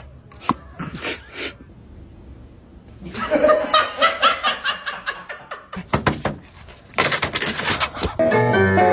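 A person laughing in quick repeated bursts, after a few sharp knocks. A clatter of sharp noisy hits follows, and piano music starts near the end.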